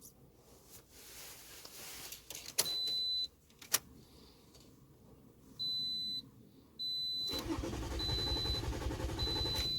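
The starter cranks the Toyota 3.5 L V6 over from about seven seconds in without it catching, under a dashboard warning chime that beeps about once a second. This is the no-start later traced to torn crank-sensor wiring. A couple of sharp clicks come near the start.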